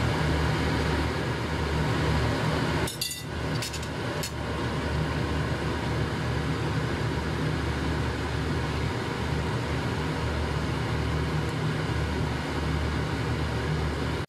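Pan of beef liver stew simmering on the stove: a steady hiss with a low hum under it, broken by a couple of sharp clicks about three and four seconds in.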